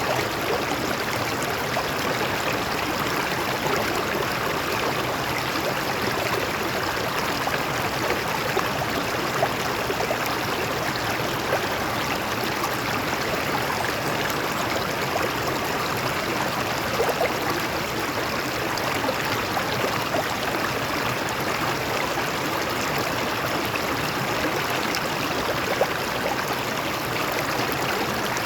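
A stream flowing over rocks: a steady rush of water with small splashes and trickles running through it.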